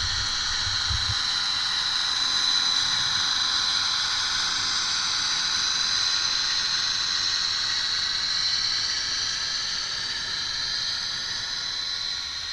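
Sound of a Bachmann N scale GP40's Soundtraxx Econami decoder playing through the model's tiny speaker: a steady hiss with a high band running through it and almost no bass, easing off slightly near the end.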